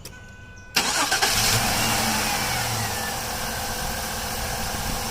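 2005 Jeep Liberty engine turned over with the key: the sound starts suddenly about a second in and then runs steadily. The fuel pressure reads low during this test, about 45 against a 53 spec, which the owner takes as a sign of a clogged fuel filter or a weak fuel pump.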